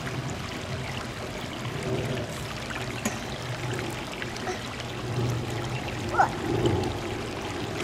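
Water running and trickling in a shallow rock-lined garden pond, with one short high-pitched sound about six seconds in.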